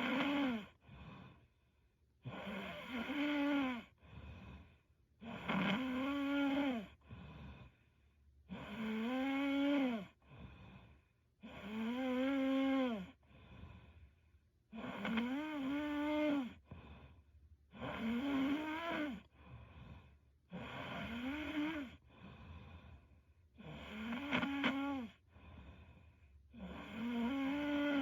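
A young woman snoring in her sleep: a long snore with a clear humming pitch that rises and falls slightly, about every three seconds, each followed by a short, softer breath.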